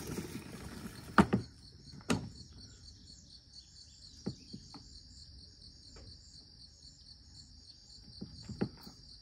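Sharp clicks and knocks from the controls of a battery mower being handled: the loudest about a second in, another about two seconds in, and a few lighter ones later. Crickets chirp steadily underneath.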